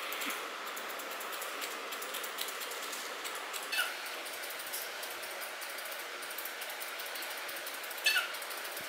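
Grooming shears snipping through a poodle's curly coat: a run of small, quick snips, with two louder snips that ring briefly, about four seconds in and near the end.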